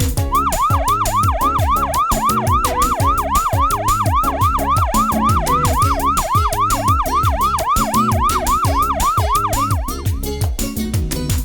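An electronic yelping siren, rising and falling in pitch about three times a second, over upbeat music with a steady beat; it stops near the end.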